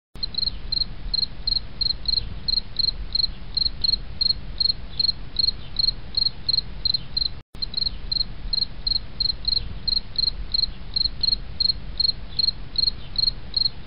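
Insect chirping, cricket-like, evenly repeated about three times a second over a low rumble. It cuts out briefly about halfway through.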